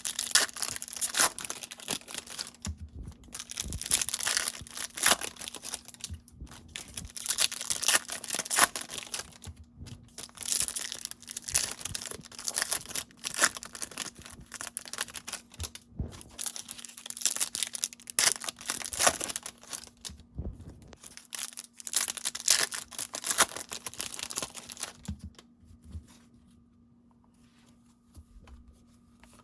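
Plastic and foil wrapping torn and crinkled as a baseball card blaster box and its packs are opened: repeated irregular bursts of tearing and crackling that die down a few seconds before the end.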